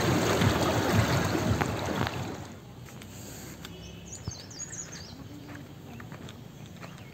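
Fast-flowing river water rushing and splashing, which stops abruptly about two and a half seconds in, leaving a much quieter outdoor background. A bird chirps briefly soon after.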